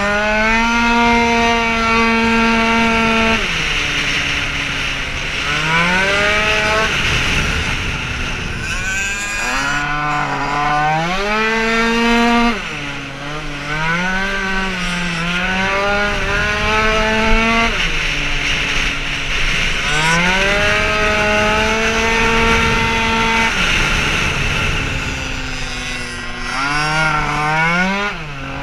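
Tuned two-stroke racing scooter engine at full throttle, heard from the rider's seat. The revs climb and then hold steady while it pulls, dropping sharply each time the throttle is shut for a corner, about five times, before climbing again.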